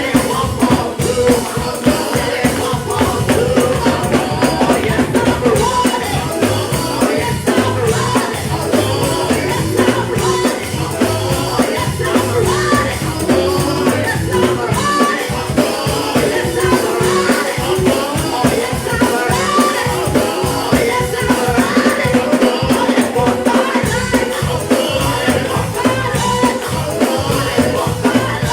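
Live gospel worship music: a band with drums and fast percussion playing steadily, with voices singing over it.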